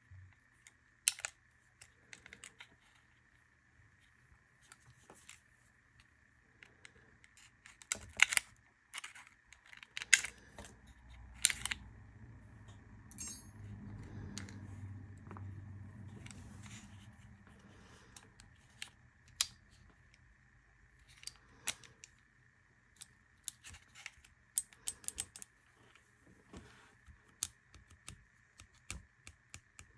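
Irregular clicks and clinks of small metal parts and the frame of a Springfield Armory 1911 DS Prodigy pistol being handled and fitted during a trigger installation. A stretch of low rubbing handling noise comes near the middle.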